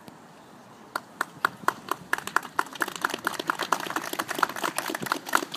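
Crowd applauding: the first claps come about a second in, then quickly thicken into steady, continuous clapping.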